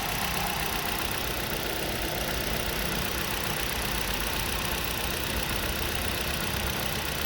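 Maruti Suzuki K-series VVT four-cylinder petrol engine idling steadily at its proper slow idle speed, running smooth with only the fuel injectors' light ticking to be heard: the sign that the cylinder misfire is gone after the head repair.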